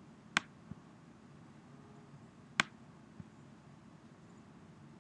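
Computer mouse clicking: two sharp clicks about two seconds apart, each followed by a softer low knock, over a faint low hum.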